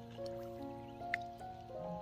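Background music: a slow melody of held notes that step from pitch to pitch, with one small click about a second in.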